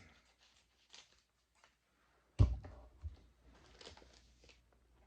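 Faint rustling and crinkling of blind-bag packaging being handled, with one sharp thump about two and a half seconds in and a lighter knock just after it.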